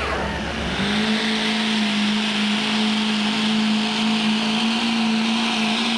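Diesel pickup truck engine running hard under load as it drags a pulling sled, holding one steady note that creeps slightly up in pitch.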